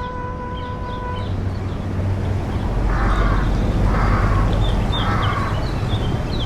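A bird gives three harsh calls about a second apart, with small high chirps from other birds, over a steady low rumble. A steady electronic tone cuts off about a second in.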